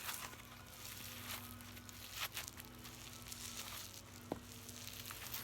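Faint crackling and squishing of foam slime, with its foam beads, being handled and shaped, a few small crackles scattered through, over a steady low hum.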